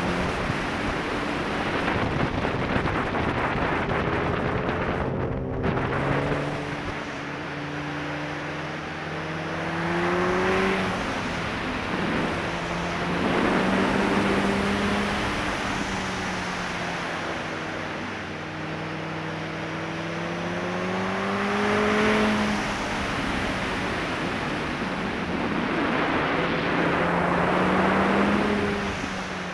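Sport bike engine heard from the rider's position, its pitch rising and falling again and again as the throttle is opened and eased off through the curves, with wind noise over the microphone.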